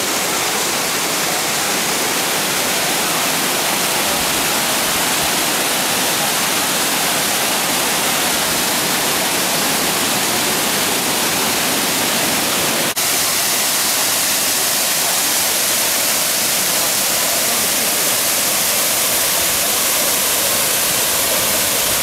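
Rushing water of a waterfall's cascades and rocky stream, a loud, steady rush. It breaks off for an instant about 13 seconds in, then carries on.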